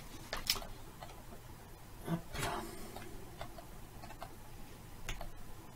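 Faint, scattered clicks of a computer mouse and keyboard, about half a dozen single clicks spread out, one of them a press of the Tab key.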